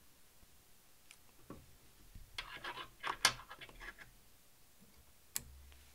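Faint scratching and a few sharp ticks of tying thread being wrapped and pulled tight as a tinsel rib is tied off on a fly at the vise.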